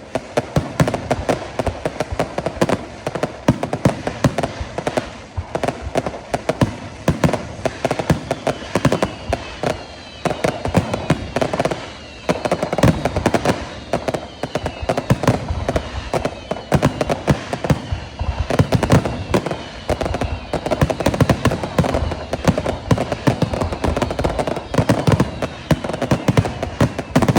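Fireworks display: a dense, continuous barrage of bangs and crackles, with a run of short falling whistles through the middle.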